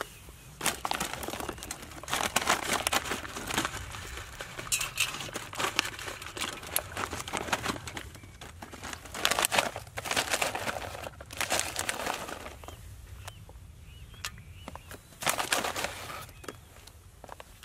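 Foil food pouch crinkling and rustling in irregular bursts as it is handled and tipped over a pot.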